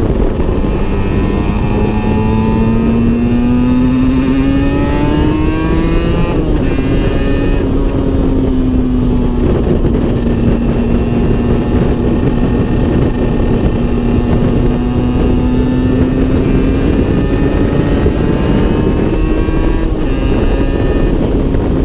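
Aprilia RS 125's single-cylinder two-stroke engine running on the road, heard from on board over a rush of wind and road noise. Its note climbs for about six seconds, drops suddenly, then holds fairly steady with a slight rise and fall near the end.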